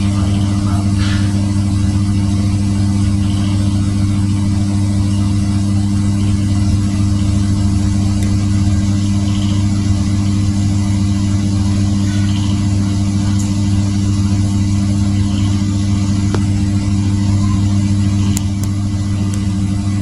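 A loud, steady low hum of a motor or electrical source, holding one unchanging pitch.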